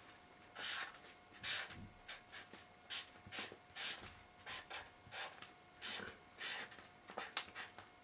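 Pen or marker writing on paper: a run of short scratchy strokes, about two a second.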